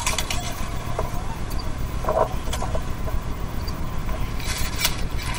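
Steady low outdoor background rumble with a few faint clicks and short brief sounds over it.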